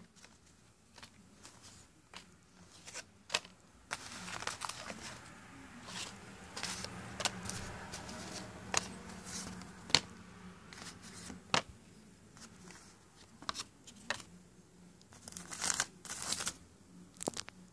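Cardboard G.I. Joe file cards being handled and shuffled by hand: irregular flicks and clicks, with longer stretches of rustling and sliding about four seconds in and again near the end.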